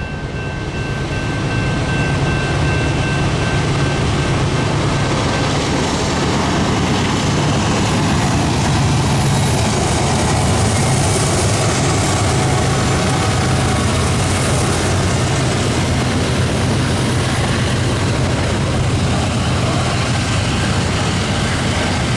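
Freight train passing close by: BNSF diesel locomotives rumble past, growing loud over the first couple of seconds, followed by the steady rolling noise of covered hopper cars on the rails.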